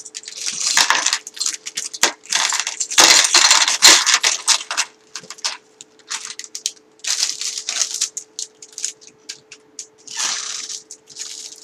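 Plastic bags of LEGO pieces crinkling as they are handled and opened, with the small plastic bricks inside rattling and clicking in irregular bursts, loudest about three seconds in.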